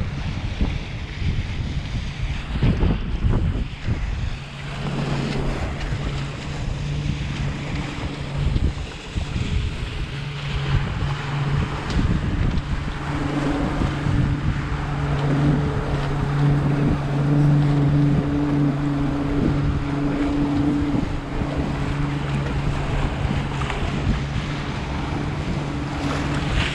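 Wind buffeting the microphone on a moving boat, with the steady hum of a boat engine underneath from about five seconds in.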